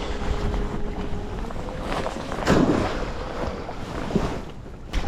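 Wind buffeting the microphone and sea water sloshing around a kayak in choppy waves, with a couple of brief splashes about two and a half seconds in.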